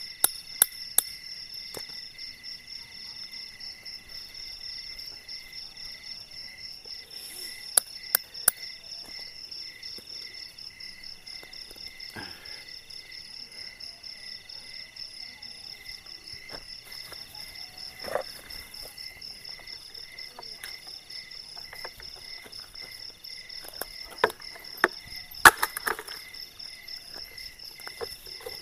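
Steady chorus of night insects, a pulsing trill at several pitches, with scattered sharp knocks and taps over it and a quick run of louder knocks near the end.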